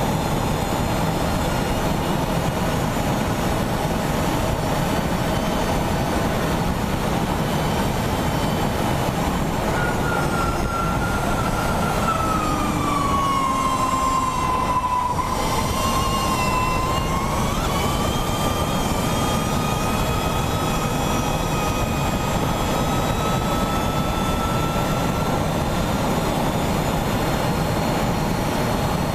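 Electric racing motorcycle at speed, heard from an onboard camera: steady wind and road rush with the electric drive's high whine. About halfway through, the whine drops in pitch as the bike slows and leans through a bend, then climbs again as it accelerates away.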